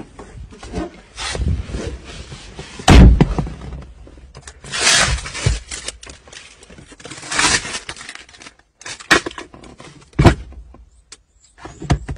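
Irregular clunks, knocks and scraping from an old car's worn interior parts being handled: door, trim and controls. The loudest thump comes about three seconds in, with rasping scrapes around five and seven seconds.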